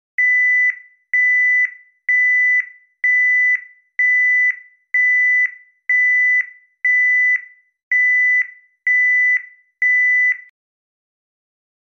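Electronic warning beeper sounding a high, steady tone in even beeps, eleven of them, each about half a second long and about one a second, then it stops.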